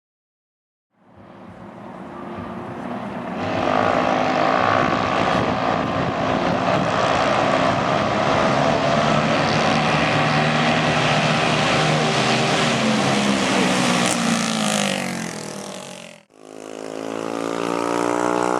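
Mini drag bike's small single-cylinder engine running hard at full throttle, building in about a second in and holding steady for around twelve seconds. Its pitch drops near the end as the bike slows. After a sudden cut, an engine runs again with its pitch slowly rising.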